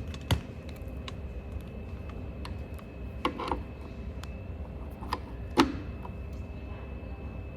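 A few sharp clicks and knocks from a phone charging cable being handled and plugged into a USB socket on a portable power station.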